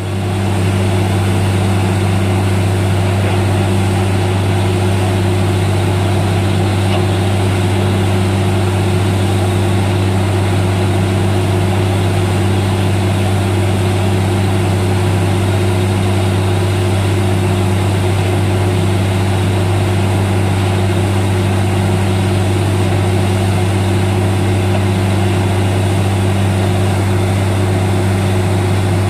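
Truck-mounted borewell drilling rig running at a steady pace, a constant low machine hum under a steady hiss of air and water spraying out of the bore as the well yields water.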